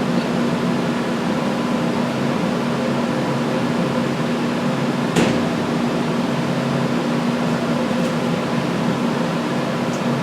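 Steady machine hum with a constant low tone, and a single sharp click about five seconds in.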